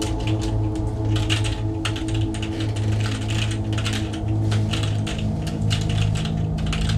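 Sustained low chord tones with rapid, irregular clicking over them, the chord shifting lower about halfway through. This is a tense backing track rather than anything done on screen.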